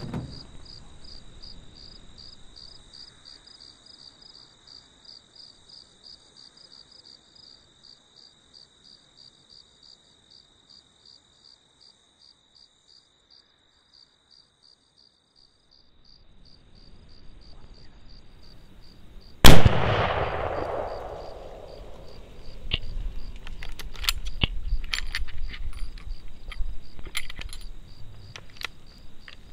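A single rifle shot about two-thirds of the way in, very loud, with a ringing tail that fades over a couple of seconds. Before it, insects chirp steadily in near quiet; scattered clicks and rustling follow the shot.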